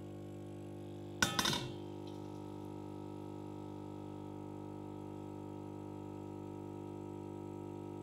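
A stainless steel cloche is set down on a ceramic plate, giving a quick cluster of metallic clinks with a short ring about a second in, over a steady low hum.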